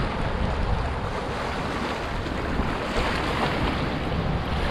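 Small sea waves washing and splashing over shoreline rocks, with wind rumbling on the microphone.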